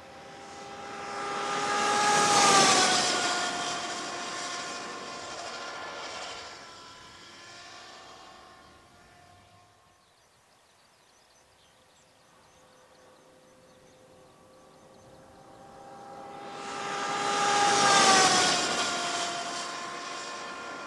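Kingston University's TTXGP electric race motorcycle passing at speed twice: each time the electric motor's whine swells, drops in pitch as the bike goes by, and fades away, with a quiet gap between the two passes.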